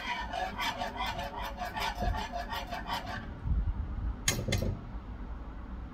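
Stainless wire whisk stirring a thick flour-thickened sauce in a pot, a quick rhythm of scraping strokes with a squeaky ring. The strokes fade about three seconds in, leaving a couple of light clinks of the whisk against the pot.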